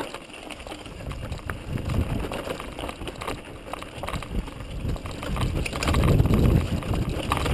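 Mountain bike descending fast on a dirt forest trail, heard through a GoPro camera's microphone: wind buffeting the microphone over the rumble of knobby tyres and scattered knocks and rattles from the bike over roots and stones, getting louder near the end.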